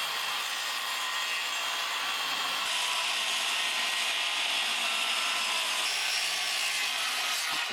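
Electric power saw cutting along a board, a steady whine that gets brighter and harder about three seconds in as the blade bites deeper into the wood.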